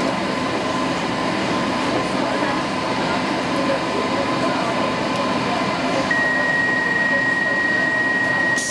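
Stockholm metro C15 train running slowly along a station platform: a steady rumble and hum, with a thin high tone that starts about six seconds in and holds. A hiss of air comes in right at the end.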